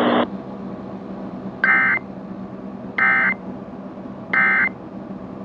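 EAS end-of-message signal: three short bursts of SAME digital data tones, about 1.3 seconds apart, marking the end of the alert test. A burst of radio static cuts off just as it begins, and faint hiss runs underneath.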